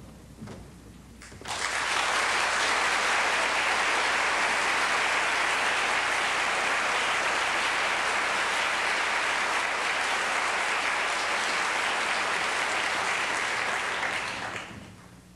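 Theatre audience applauding as the lead actor makes his entrance. The applause breaks out suddenly about a second and a half in, holds steady, then dies away near the end.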